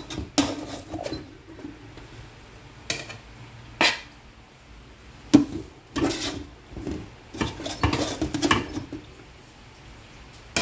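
A plate scooping cooked rice and tipping it into a cooking pot: scattered scrapes and knocks of the plate against the pot rims, about ten of them, with a busier run near the end.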